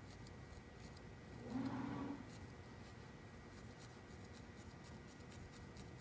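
Barbed felting needle stabbing repeatedly through wool into a felting pad: faint, irregular scratchy pokes. A brief low hum sounds about a second and a half in.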